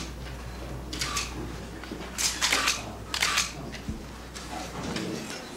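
Still cameras' shutters clicking in a few quick runs, over a steady low hum that cuts off near the end.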